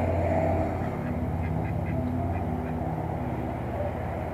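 Mallard ducks quacking, a quick run of about five short calls about a second and a half in, over a steady low hum.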